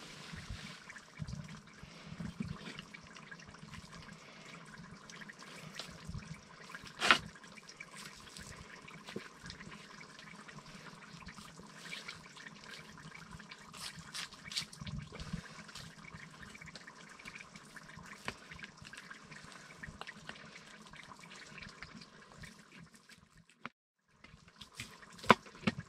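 Stew simmering and bubbling in a cast iron pot on a wood stove, with scattered small clicks and one sharp knock about seven seconds in.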